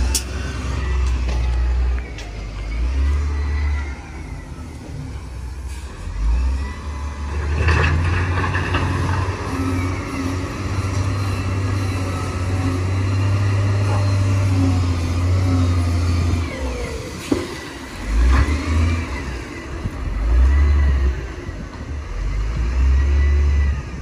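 Heavy diesel earthmoving machinery working: a big engine rumbling and revving up and down under load, with a few clanks and knocks and some high, wavering squeaks.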